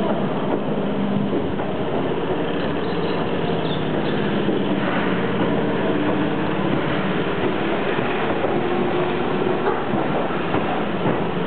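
Keihan 2600 series electric multiple unit pulling out of a station and gathering speed: its motors hum steadily under the running noise of the cars, and the wheels click over the rail joints more often toward the end.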